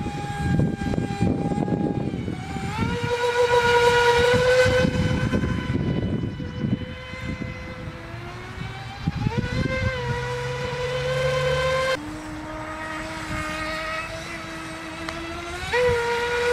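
FT012 RC speedboat's brushless electric motor whining at speed, its pitch gliding up with each push of the throttle and dropping abruptly about twelve seconds in, over a low rushing noise.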